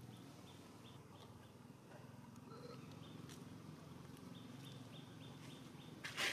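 Faint outdoor ambience: a short high chirp repeating about three times a second over a low steady hum. Near the end comes a brief, louder crackling rustle of dry leaves as a baby macaque moves through the undergrowth.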